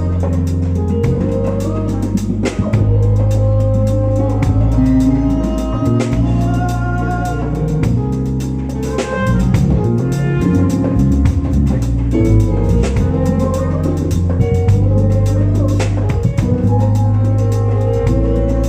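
Live band playing: a drum kit keeping a steady beat under held bass notes and a moving melody line.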